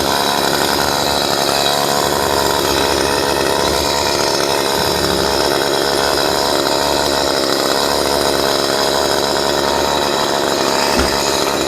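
Chainsaw running at a steady speed, without revving up or bogging into a cut.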